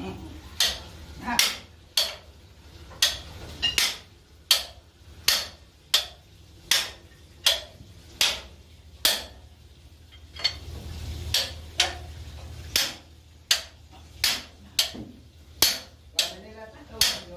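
Hammer blows on metal, struck at a steady pace of about one every three-quarters of a second, during repair work on a marine diesel engine.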